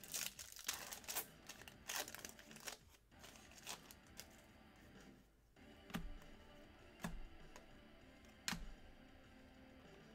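Plastic trading-card pack wrappers crinkling and tearing as a pack is opened, in the first few seconds. Then three separate light knocks follow about a second apart.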